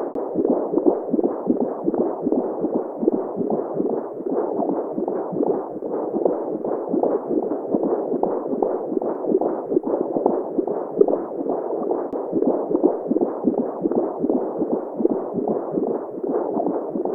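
Simulated womb sound: a muffled, low whooshing that pulses continually, with a mother's heartbeat woven in, used as white noise to settle a baby to sleep.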